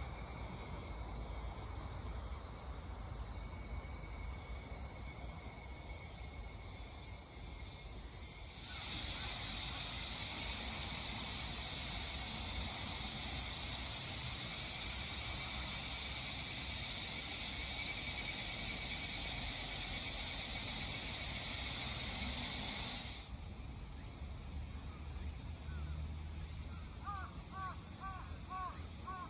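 Forest insects droning in a steady high-pitched chorus that grows louder about nine seconds in and drops back about twenty-three seconds in. Near the end a bird gives a quick run of short chirps.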